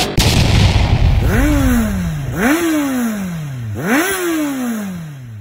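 Motorcycle engine revved three times over a low idle rumble. Each rev climbs quickly in pitch and then falls slowly back toward idle.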